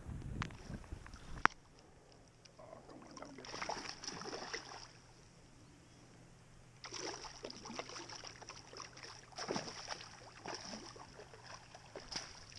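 Water splashing and sloshing in bursts as a hooked bowfin thrashes at the surface against the fly line. A low wind rumble on the microphone ends in one sharp click about a second and a half in.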